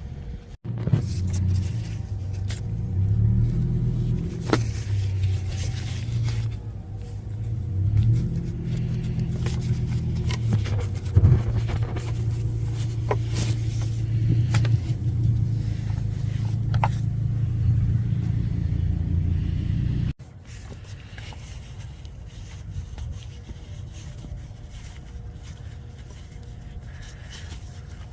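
BMW 335i's twin-turbo inline-six engine running at idle: a steady low hum with scattered light clicks. It cuts off suddenly about two-thirds of the way through, leaving a quieter low background.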